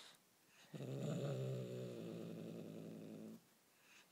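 Bengal kitten growling low with a feathered toy clamped in its mouth: one long growl starting just under a second in and stopping about three and a half seconds in. It is a possessive growl, the kitten guarding its toy prey.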